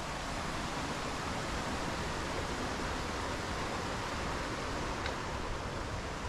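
Steady rush of running water from a stream, an even hiss without breaks.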